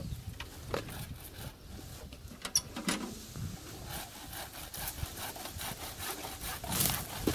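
Shrub branches being worked by hand: an irregular rustling of brush with scattered sharp cracks and snaps of wood.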